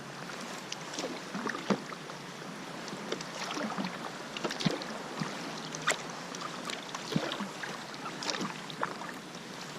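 Kayak paddling on open water: water splashing and dripping off the paddle and hull, with irregular sharp splashes and knocks over a steady watery hiss.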